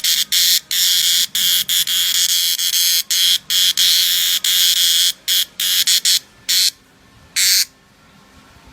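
Dundubia nagarasingna cicada calling: a loud, high-pitched buzz broken by brief gaps, which breaks up into shorter bursts and stops about a second before the end.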